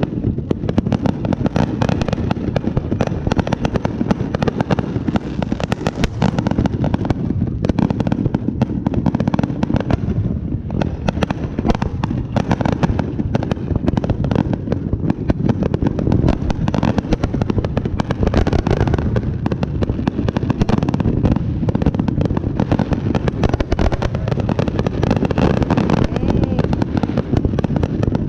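Fireworks going off in a dense, unbroken barrage: many rapid bangs and crackles overlapping without a pause.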